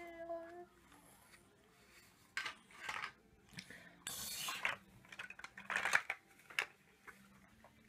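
Large plastic toy building blocks clattering and knocking together as a toddler rummages through the pile, in several clusters with a longer rattling spell about four seconds in. A short, falling vocal sound from the toddler at the very start.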